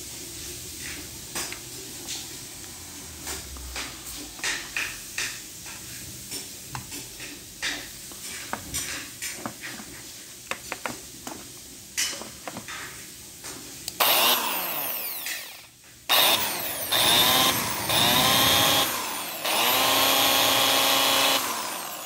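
Light handling clicks and taps, then, about two-thirds of the way in, a corded DeWalt electric drill's motor is run in three trigger bursts. Each burst spins up to a steady whine and winds down in pitch when the trigger is let go. The motor is making the dragging, holding sound of a drill that runs hot.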